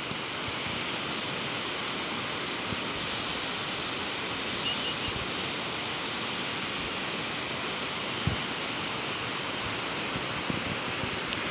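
Steady, even outdoor rushing noise with no speech, with a single short knock about eight seconds in.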